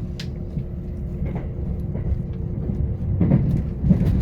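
Steady low rumble of a JR Limited Express train running on the line, heard from inside the passenger cabin, with a faint steady hum over it.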